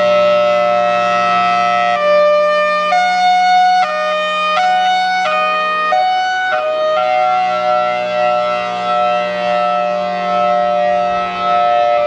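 Federal Signal Thunderbolt 1003 outdoor warning siren sounding its hi-lo alert, very loud, switching back and forth between a lower and a higher tone. The switching is quicker for a few seconds in the middle, then it holds each tone longer.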